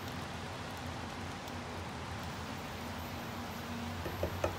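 Thick curry simmering in a pan, a steady bubbling hiss, with two light knocks near the end from the wooden spatula against the pan.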